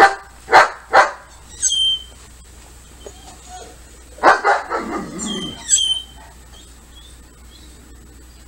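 A dog barking: three sharp barks in quick succession, then a longer run of barks about four seconds in.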